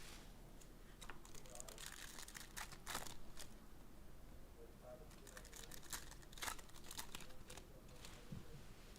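Faint crinkling and tearing of trading-card pack wrappers and packaging being opened and handled, in scattered short crackles and clicks.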